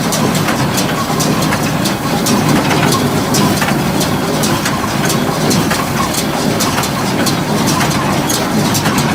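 International Harvester 430 small square baler running on a tractor's PTO during a test run: a steady engine drone with a fast, uneven run of sharp mechanical clicks and knocks from the baler.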